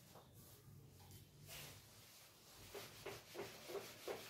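Near silence, then over the last second and a half a felt eraser wiping a whiteboard in short back-and-forth strokes, about three a second.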